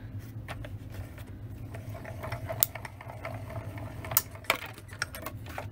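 Small hand-cranked die-cutting machine being cranked, its rollers drawing a die-cutting plate sandwich through with a mechanical grinding and scattered clicks, a few sharper clicks in the second half.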